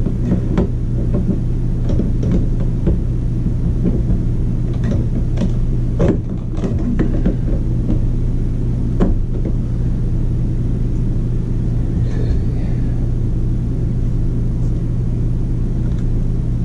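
Clicks and knocks of an RV roof crank vent's parts being handled and fitted by hand, over a steady low hum; the clicks come mostly in the first half, with a small cluster a few seconds apart and the last one about nine seconds in.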